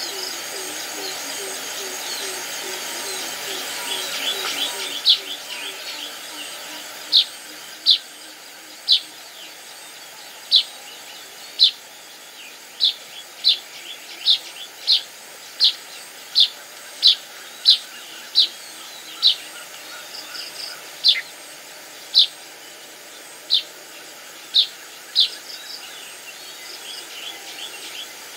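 Bird calling: a single short, sharp, high chirp repeated about twenty times, roughly once a second. A low, rapidly pulsing sound fades out about five seconds in, just before the chirps start.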